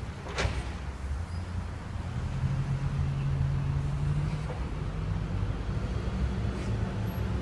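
Garbage truck's diesel engine running as the truck pulls away down the street, a steady low rumble. Its engine note strengthens for a couple of seconds in the middle, and a short click sounds just after the start.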